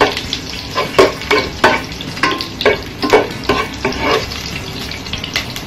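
Garlic sizzling in hot cooking oil in a pot, stirred with a metal spoon that scrapes and knocks against the pot in about a dozen quick strokes, easing off near the end.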